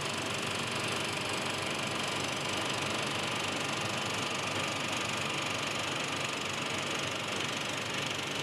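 35mm film projector running, its mechanism making a steady, fast mechanical clatter with a whir underneath.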